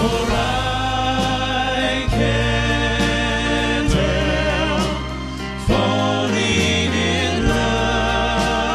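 Male vocal quartet singing held close-harmony chords over a live band of piano, bass and drums, the chord changing about every two seconds.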